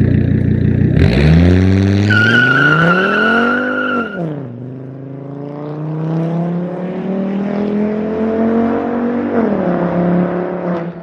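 Volvo S60's turbocharged five-cylinder engine with a big turbo and a catless 3-inch straight-pipe exhaust pulling hard, its revs climbing for about three seconds with a high whine over them, then falling sharply about four seconds in. It then pulls again more gently, revs rising slowly, with a brief dip near the end.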